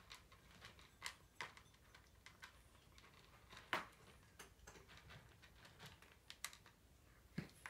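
A cat eating dry kibble from a plastic bowl: faint, irregular crunches and clicks, with a few louder ones about halfway through and near the end.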